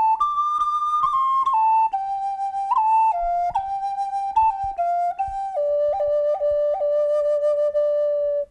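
Wooden Native American flute, with its inner whistle and air pre-chamber, playing a slow melody in a soft, wooden tone. It jumps to a high note soon after the start, steps down note by note, and settles on a long low note decorated with a few quick upward flicks near the end.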